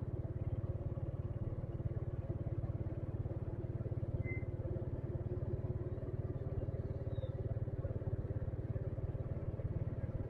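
Motorcycle engine running steadily under way, heard from the rider's position as a low, even throb with road noise around it.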